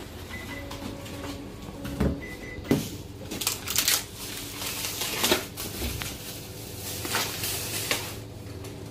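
Scattered knocks, clicks and short crinkling rustles of goods being handled in a grocery shop, over a steady low hum.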